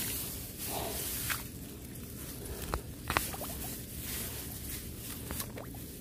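Rustling of rice leaves close to the microphone, with scattered small clicks and wet sounds, as weeds are pulled by hand from between rice plants in a flooded paddy.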